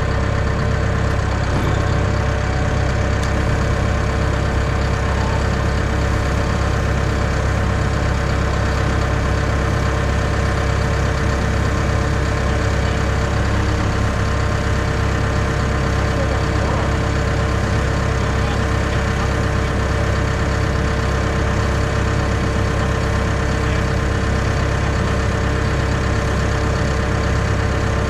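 Cat excavator's diesel engine running at a steady speed, a constant low drone with a steady whine above it.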